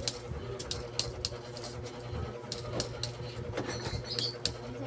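Light, irregular taps of a mallet on the copper windings of a rewound alternator stator, about two or three a second, shaping the new coils. A steady low hum runs underneath.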